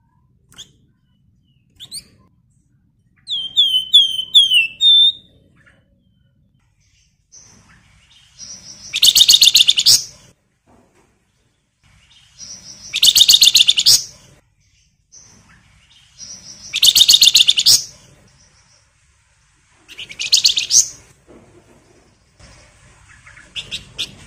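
Javan fulvetta (flamboyan) singing: a few short high chirps, a quick run of five falling whistled notes, then four loud chattering bursts of about a second each, some four seconds apart.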